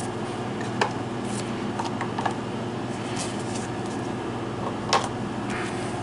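Magic: The Gathering cards being sorted by hand: a few light clicks and soft card rustles, the sharpest about a second in and near the end, over a steady machine hum.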